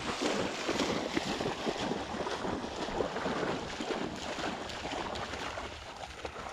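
A retrieving dog bounding through shallow floodwater, with a continuous run of irregular splashing.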